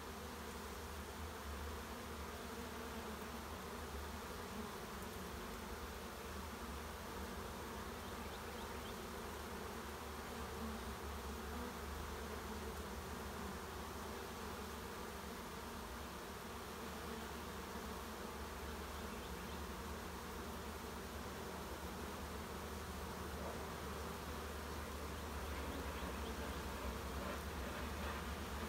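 A crowd of honeybees buzzing in a steady drone, growing a little louder near the end. The colony has been driven out of its nest by a repellent spray and is moving into a new box.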